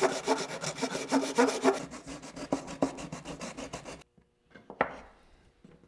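Hand-sanding a 3D-printed plastic part on a sheet of sandpaper laid flat on a wooden workbench, to flatten the edge that is to be glued: a rhythmic rasping, about three back-and-forth strokes a second. It stops about four seconds in, and a short knock follows.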